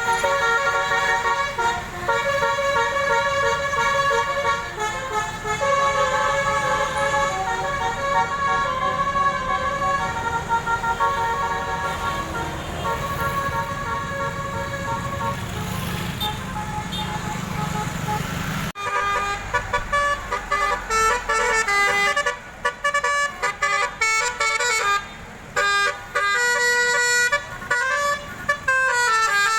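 Indonesian bus telolet horn, a multi-tone musical horn, playing tunes with an engine rumble beneath. For the first two-thirds it holds chords of several notes, stepping from note to note. After an abrupt change about two-thirds of the way in, it plays quick staccato toots with short gaps.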